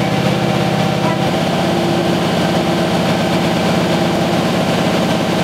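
Newspaper printing-plant machinery running: a loud, steady low hum with a fast, even pulse and a few held tones, shifting slightly about a second in.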